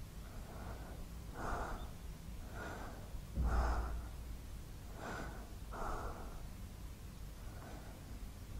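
A woman breathing heavily in short, uneven breaths about once a second, with a soft low thump about three and a half seconds in.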